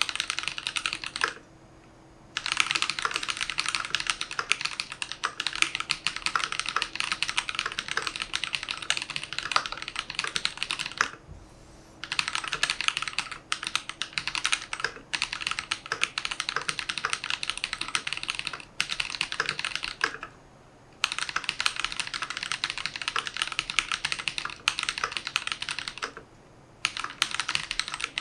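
Archon FX+ mechanical keyboard fitted with Holy Panda tactile switches, typed on quickly and continuously with key clacks, stopping for a moment four times.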